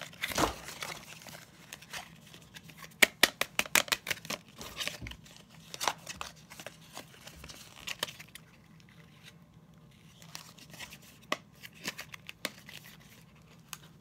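Paper and plastic packaging of a small puzzle-cube box being handled and torn open: irregular crinkling and sharp crackles, a dense run about three seconds in, then scattered snaps with a quieter spell in the middle.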